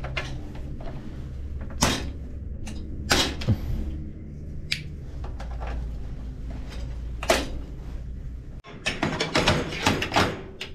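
Sharp clicks and knocks of metal fittings and tools being handled during espresso machine reassembly, over a steady low hum that stops abruptly about eight and a half seconds in; a quick run of clicks follows near the end.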